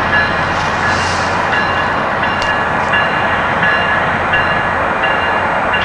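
UTA FrontRunner commuter train running along the track as it pulls away, a steady, even rail noise with a low hum and faint high tones.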